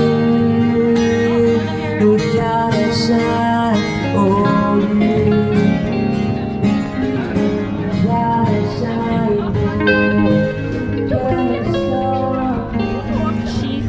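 Music: a guitar playing with a singing voice, loud and continuous.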